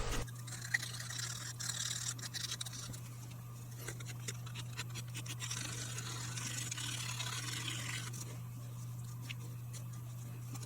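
Faint scratching and rubbing as the glue-and-carbon rebuilt button of a pipe stem is worked by hand with an abrasive, over a steady low hum. The scratching is strongest through the middle and eases off near the end.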